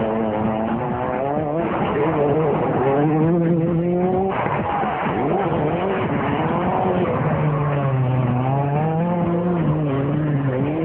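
Rally car engines revving hard, the pitch climbing and falling with the throttle and gear changes, over tyre and gravel noise. The sound jumps abruptly about four seconds in as the footage cuts to another car.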